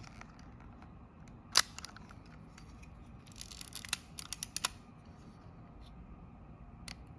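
Kodak Retina IB folding camera's leaf shutter firing once with a sharp click about a second and a half in, set to 1/50 s during a shutter-speed test. A couple of seconds later comes a quick run of smaller clicks and a short scrape as the camera's mechanism is worked, and one more click near the end.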